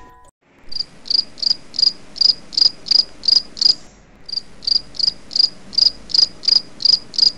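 A cricket chirping steadily, about three high chirps a second, with a short break about four seconds in.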